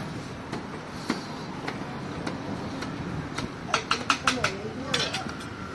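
Busy stall background noise with indistinct chatter, broken by sharp clicks and clinks: a few spaced out at first, then a quick run of them a little past halfway.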